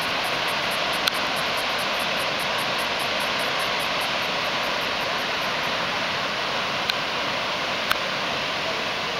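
Steady rushing of floodwater pouring over a dam spillway, with a few short sharp clicks, once about a second in and twice near the end.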